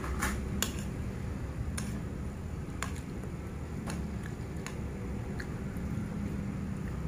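A metal spoon clicking and scraping against a plate several times, irregularly, with chewing, over a steady low hum.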